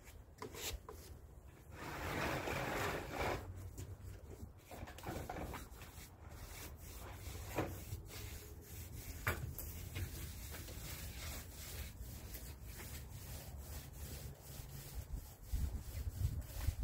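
Paint roller on an extension pole rolling stain across wooden porch deck boards: rubbing strokes, the longest and loudest about two seconds in, with scattered light clicks.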